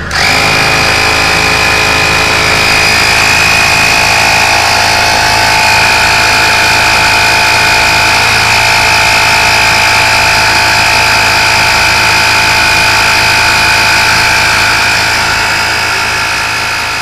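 12V portable tyre inflator compressor switching on and running steadily while pumping up a car tyre, a loud steady drone with a high whine on top. It fades away over the last couple of seconds.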